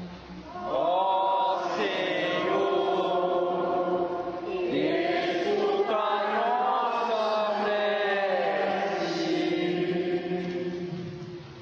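Liturgical chant: voices singing a slow, melismatic melody in long phrases, with a low held note beneath parts of it. The singing fades out near the end.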